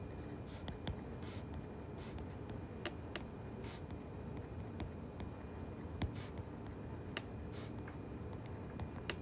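Stylus writing on a tablet screen: a scatter of light taps and short scratchy strokes over faint steady room noise.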